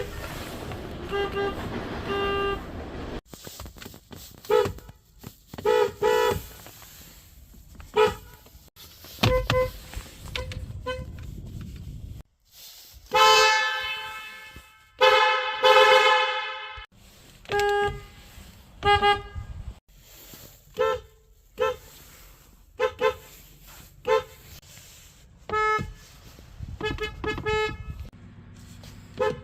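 Car horns honking in a rapid series of short two-tone beeps, with two longer, louder blasts around the middle.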